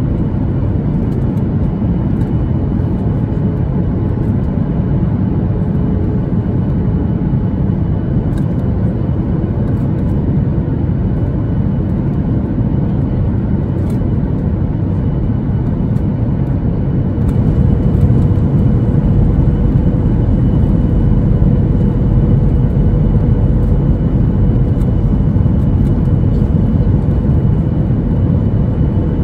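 Boeing 737-800 cabin noise heard at a window seat by the wing: the steady rumble of the CFM56 turbofans and the airflow on the approach to landing, with a faint steady hum over it. The noise grows somewhat louder a little past halfway through and stays louder.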